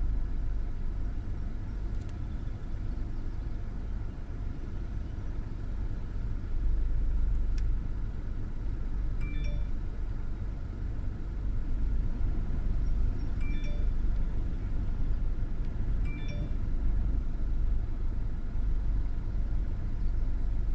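Low, gusty rumble of storm wind buffeting the vehicle and microphone as a thunderstorm's rain approaches. Three short, high electronic chimes sound a few seconds apart in the second half.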